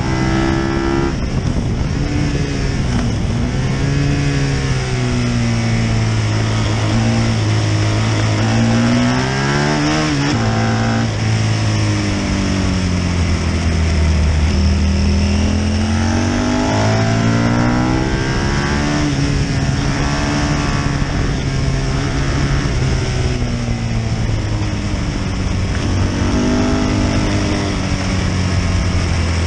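A Britten V1000 racing motorcycle's V-twin engine under hard use on track, revving up and down as the rider accelerates, changes gear and brakes. The pitch climbs for the first ten seconds, drops sharply, is at its lowest a few seconds later, then rises and falls several more times. It is heard from a camera mounted low beside the front wheel.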